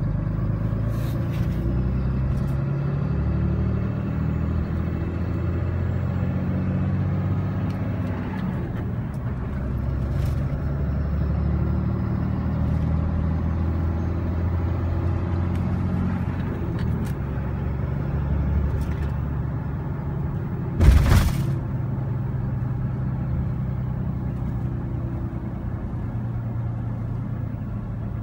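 Ram 3500's 6.7 L Cummins turbo-diesel inline-six running under light load at low revs, heard from inside the cab, its pitch shifting a few times as the revs change. A short, loud thump about 21 seconds in.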